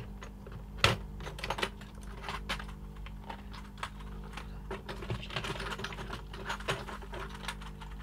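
Atari ST keyboard keys being pressed in quick, irregular clatters of plastic clicks, with one sharper click about a second in, as the keyboard is tried out after its key contact springs were refitted.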